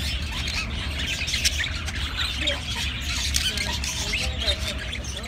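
A flock of budgerigars chattering and squawking: many short, overlapping high calls, over a steady low rumble.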